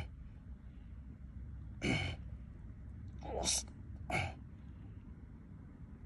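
Short wet plops and squelches as a baited eel hook is worked in a small water-filled mud hole, four quick splashy bursts at uneven intervals, each dropping in pitch.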